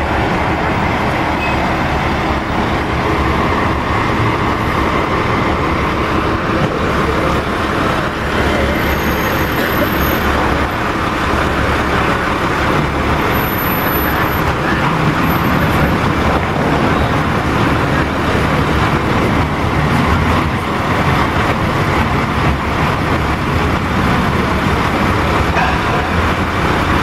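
Diesel engine of a truck-mounted crane running steadily, keeping the crane powered while it holds a load.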